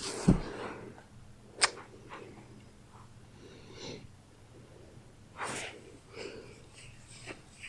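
Pet rabbit sneezing in short, sharp bursts, the sharpest about a second and a half in and another after about five seconds. A low thump comes just after the start.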